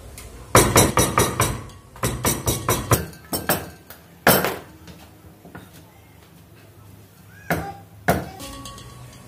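Meat cleaver chopping raw pork against a wooden chopping board: quick runs of chops through the first three seconds, one hard chop about four seconds in, then two more near the end.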